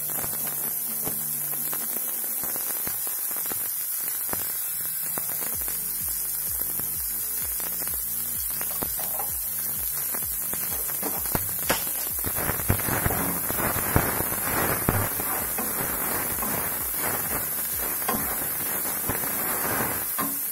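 Onions and curry leaves frying in oil in a pan: a steady hiss. In the second half a wooden spatula stirs and scrapes the pan, adding louder clicks and crackles.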